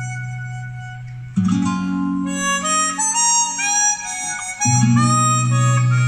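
Music played back through an Allegro-II KT88 push-pull valve amplifier and bookshelf speakers as a listening test after its repair: a reedy, harmonica-like melody over long held chords. The chords break off and restart a few times.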